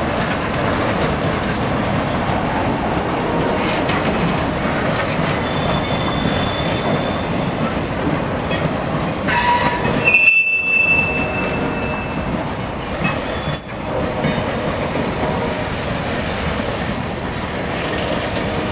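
Freight cars of a passing mixed freight train: a steady rumble and clatter of wheels over the rails. Brief high-pitched wheel squeals come in several times, the loudest about ten and thirteen and a half seconds in.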